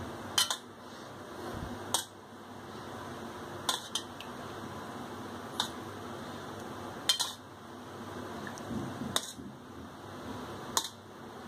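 A steel spoon clinking against dishes, about nine short sharp taps every second or two, as curd is scooped and dropped onto cooked rice on a plate.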